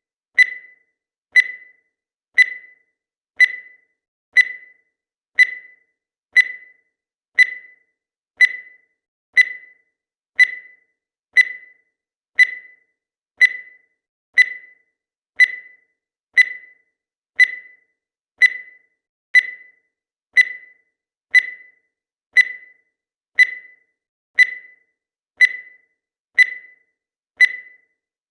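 Countdown timer's electronic beep sounding once a second, evenly, about 28 times. Each beep is short and high-pitched and fades quickly.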